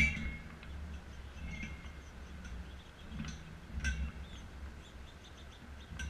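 A gray squirrel cracking and crunching sunflower seeds close by on a metal feeder tray: a string of sharp, irregular clicks, the loudest right at the start. Small birds chirp faintly in between.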